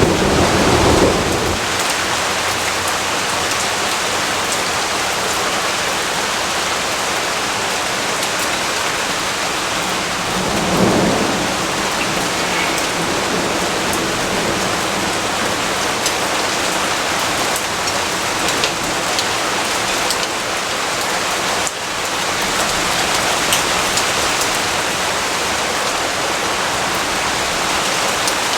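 Steady rain pouring down, with low rumbles of thunder as it begins and again about eleven seconds in.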